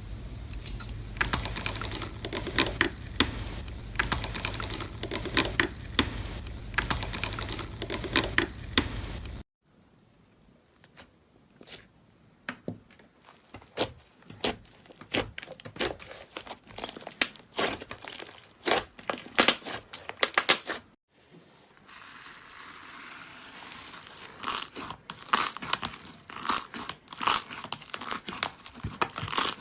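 Slime being squeezed and pressed by hand: a quick run of sticky clicks, pops and crackles. The sound changes abruptly twice, the middle stretch sparser and quieter than the first and last.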